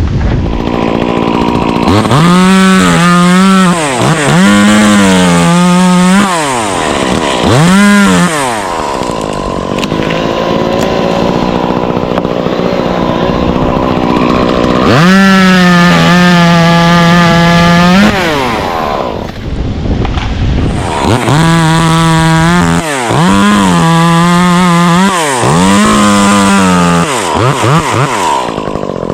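Two-stroke chainsaw revving to full throttle in repeated bursts and dropping back to idle in between. Its longest run at full speed, a few seconds long, comes about halfway through, typical of the saw cutting into wood.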